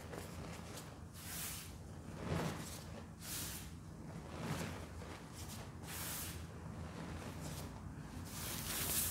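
A dry mix of Ajax cleanser powder and baking soda dropping and crumbling from hands onto a powder-covered surface. It makes soft hissing swishes every second or so, with squishing as the hands press into the heap.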